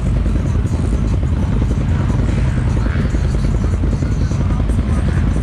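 ATV and side-by-side engines idling together, a steady low rumble with a fast even pulse.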